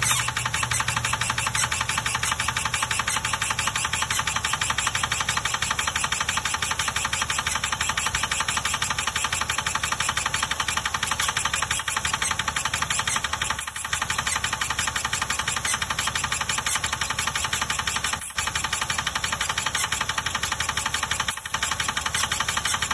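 Idling Ford engine with a rapid, even ticking from under the hood, an unexplained noise whose cause the owners are trying to find. The sound dips briefly three times in the second half.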